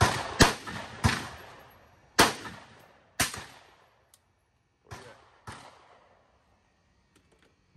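Ruger SFAR semi-automatic rifle fired five times in a little over three seconds at an uneven pace, each shot a sharp crack with a short echoing tail. Two fainter gunshots follow about five seconds in.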